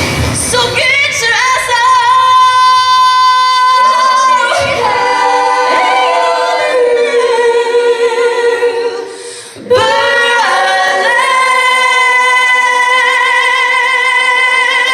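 Women's voices singing together, mostly a cappella, on long held high notes with vibrato. The singing breaks off briefly about ten seconds in, then returns on a final sustained note.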